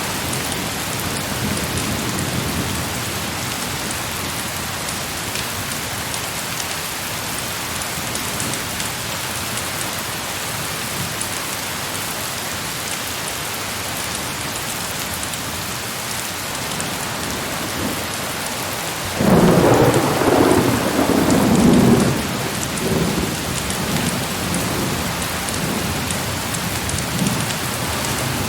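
Steady heavy rain. About two-thirds of the way in, a thunderclap breaks in suddenly, loud for a few seconds, then rumbles away more faintly.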